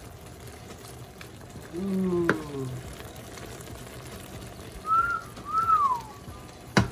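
Curry shrimp cooking in a pan with a steady low sizzle and bubble. Over it there is a short hummed sound about two seconds in, two short whistled notes around five seconds, and a couple of sharp knocks at the very end.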